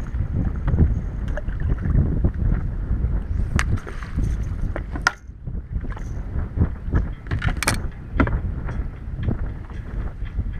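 Gusty wind buffeting the microphone on an open bass boat, with chop slapping the hull, and a few sharp clicks.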